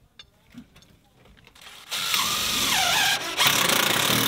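Cordless driver running a screw into steel building siding, starting about two seconds in: a motor whine that bends down in pitch as it loads, a brief drop, then a second run that ends in a rapid clatter as the screw seats.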